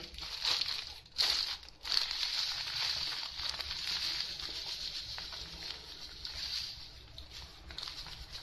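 Dried ground chilli flakes poured from a plastic bag into a clay mortar: a steady dry hiss of falling flakes and crinkling plastic, fading away over the second half.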